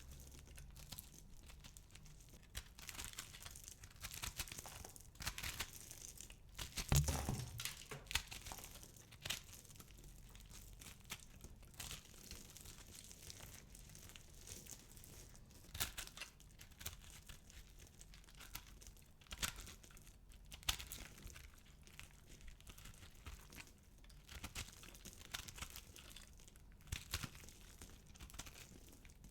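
Dry soap balls being crushed, crackling and snapping in irregular runs of small sharp clicks, with one louder, heavier crunch about seven seconds in.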